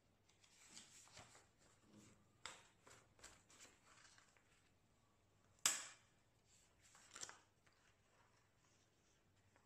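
Paper planner inserts rustling and sliding as they are handled, with one sharp metal snap a little past halfway as the planner's binder rings are worked, and a smaller clicking cluster about a second and a half later.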